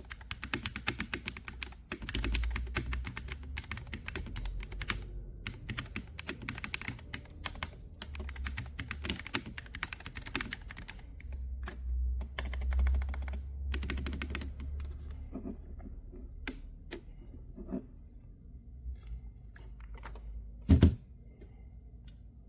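Typing on a MonsGeek FUN60 Pro SP keyboard with Akko Glare magnetic switches: fast runs of keystrokes for about the first fifteen seconds, then slower, scattered key presses. Near the end there is one louder knock.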